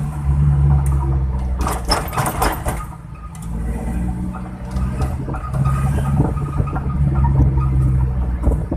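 Suzuki Carry engine running with a deep, snoring exhaust note likened to a bus, its pitch rising and falling with the throttle. A short rattling, clattery stretch comes about two seconds in.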